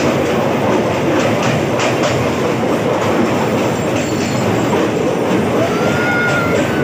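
Passenger train running on the track: a steady rumble of wheels with clacks from the rail joints, and a thin wheel squeal that sets in near the end.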